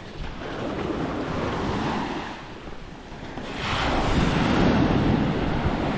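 Surf washing and breaking on a sandy beach, with wind buffeting the microphone. The wash swells and ebbs, then grows louder about three and a half seconds in.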